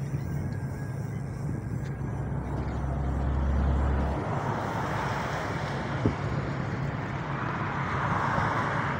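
Steady city road-traffic noise with a low hum. A deep rumble builds and cuts off suddenly about four seconds in, and a single sharp tick comes about six seconds in.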